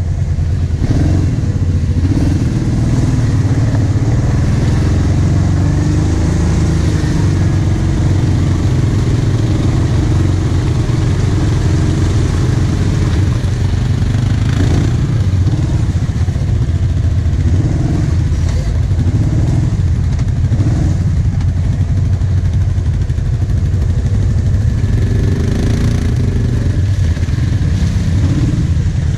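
Kawasaki Brute Force 750 ATV's V-twin engine running at low revs as the quad crawls through mud, its pitch rising and falling slightly with the throttle.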